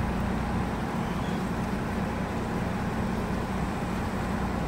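Ferry boat's engines running with a steady low drone, heard on deck.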